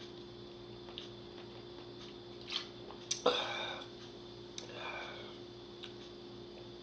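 A quiet room with a steady low electrical hum, and a few short soft sounds: a click followed by a brief breathy noise about three seconds in, and fainter ones before and after it.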